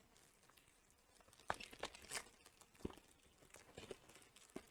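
Faint crinkling and tearing of a Pokémon booster pack's foil wrapper being ripped open, a series of short scattered crackles starting about a second in.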